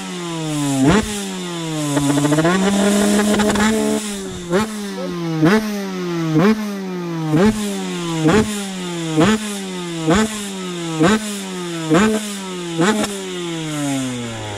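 TM SMR 125 carburetted two-stroke supermoto engine revved hard while standing still. It is held at high revs for about two seconds near the start, then blipped sharply about once a second, each rev snapping up and falling back.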